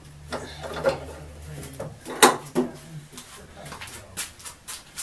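Steel pipe clamps knocking and clattering against a wooden workbench top as they are handled and adjusted: a string of separate knocks, the sharpest a little over two seconds in.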